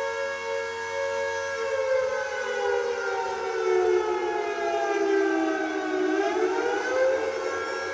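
Air raid siren wailing: a held, many-overtoned tone that slowly sinks in pitch for about four seconds, then climbs quickly back up and holds again near the end.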